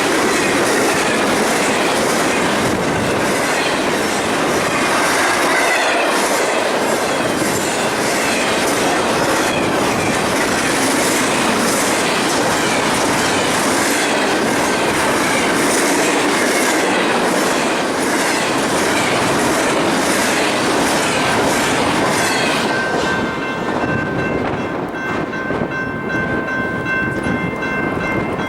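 Train passing close by, its cars' wheels clattering rhythmically over rail joints. Near the end the clatter drops away and steady high tones ring on.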